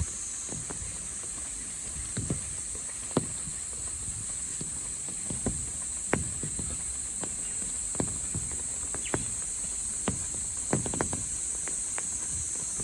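Steady high-pitched insect chorus, with scattered irregular taps and knocks about once a second.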